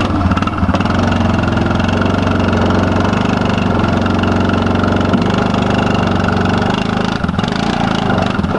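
ATV engine running steadily at low revs as the four-wheeler climbs steep loading ramps onto a trailer.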